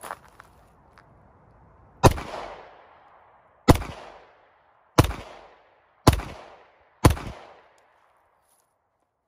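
Five 9mm shots from a Glock 19 Gen 5 pistol, fired a second or so apart, each trailing off in a short echo. A few faint clicks of gun handling come just before the first shot.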